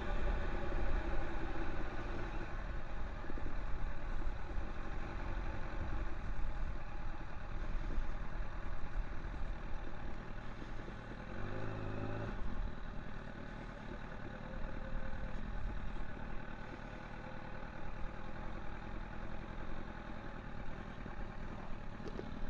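Honda Fireblade's inline-four engine running under way, its sound easing off and getting quieter over the stretch, with a brief rising engine note about halfway through.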